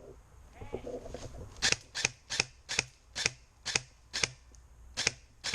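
Airsoft gun fired on semi-auto, a quick string of about seven single shots at roughly two a second, then a short pause and two more shots near the end.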